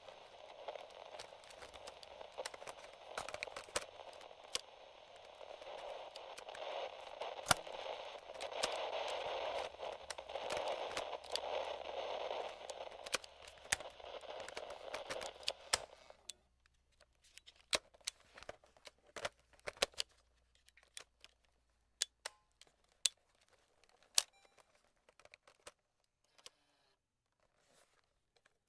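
Light radio static with crackle from a vintage cassette-recorder FM/AM radio. It swells louder in the middle and cuts off abruptly just past halfway. After that come scattered sharp clicks from the radio's slider and switch controls being handled.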